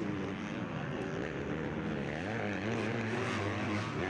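250-class motocross bike engines revving hard, their pitch rising and falling with the throttle.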